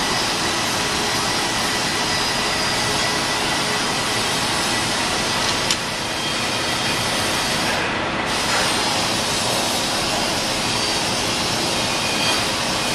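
Steady, machine-like rushing noise with a faint high steady tone, and a single sharp click about six seconds in.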